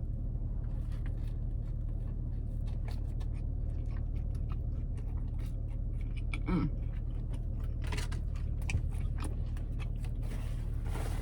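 A person chewing and biting food close to the microphone: wet, irregular mouth clicks over a steady low hum, with a brief closed-mouth "mm" about six and a half seconds in.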